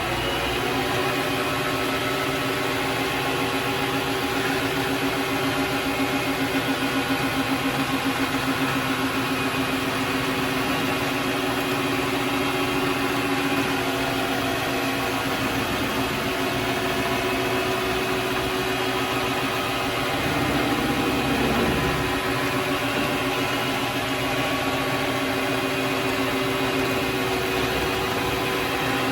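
Vevor MX400 mini lathe running steadily, its motor and drive giving a continuous whine made of several steady tones. About twenty seconds in the tone briefly dips and a low rumble rises for a couple of seconds.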